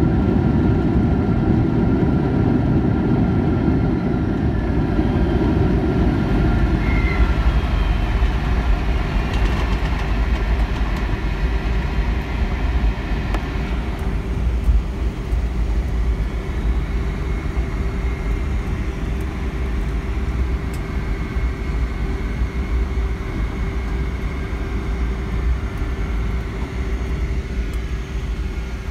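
Cabin noise of a Boeing 757-351 on its landing rollout on a snowy runway: a loud, deep rumble from its Pratt & Whitney PW2040 engines and wheels that eases after the first several seconds as the jet slows, leaving a steady hum with a held tone as it rolls on.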